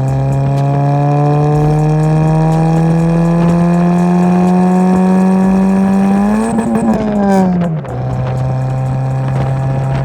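2000 Honda Civic's four-cylinder engine through a custom-baffled eBay catback exhaust, pulling under load with its note climbing steadily. About seven seconds in the revs waver and drop, as at a gear change, and the engine then holds a steady lower note until it cuts off just before the end.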